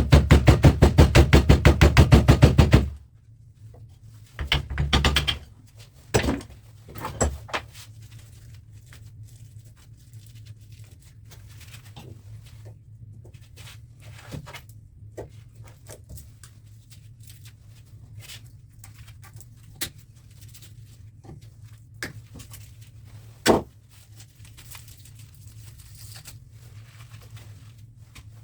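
Loud rapid rattle, about ten pulses a second, that stops suddenly about three seconds in, then scattered knocks and clunks of metal parts and tools being handled while fan motors are taken apart for their copper.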